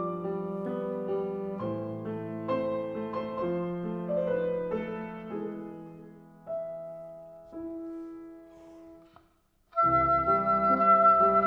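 Steinway grand piano playing a classical passage alone, thinning out to a few held notes that fade away. After a brief silence near the end, the oboe enters loudly with the piano accompanying.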